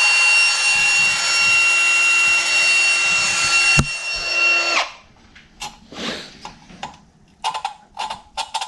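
A power drill spins an exhaust valve on its seat through a length of vacuum hose, lapping the valve: a steady motor whine over a gritty grinding noise. About four seconds in it clicks off and winds down. Light metallic clicks and taps follow.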